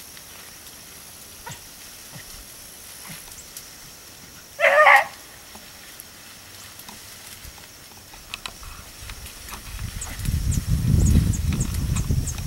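A hunting beagle gives one short, loud bay about halfway through. Near the end a low rumbling noise builds up.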